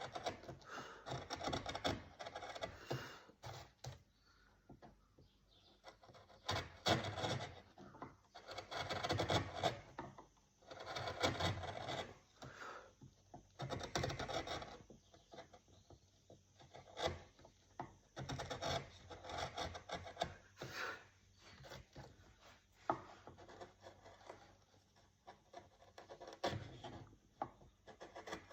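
A hand tool working a piece of wood: bursts of rubbing, rasping strokes a second or two long with short pauses between them, and a few sharp knocks.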